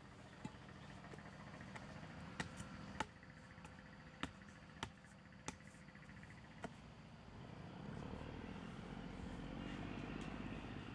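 About eight sharp, irregular knocks of a stick or pole tamping earth around the base of a bamboo post. A louder low rushing noise builds over the last few seconds.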